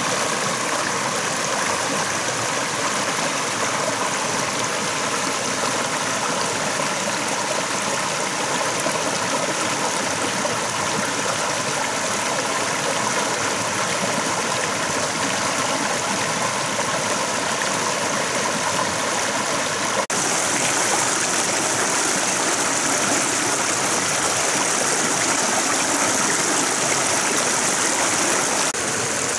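Shallow rocky stream running over small cascades: a steady rush of water, a little louder and brighter from about two-thirds of the way in.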